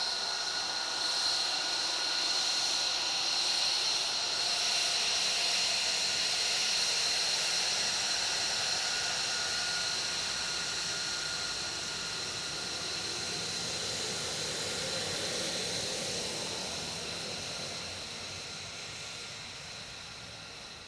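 F-35B Lightning II's Pratt & Whitney F135 turbofan running at taxi power as the jet rolls past: a steady high-pitched turbine whine over a rushing hiss, getting a little quieter over the last few seconds.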